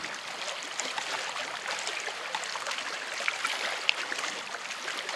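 Lake water lapping and splashing: a steady rushing broken by many small irregular splashes.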